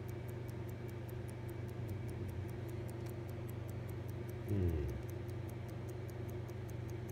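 Mechanical watch ticking fast and evenly, over a steady low hum.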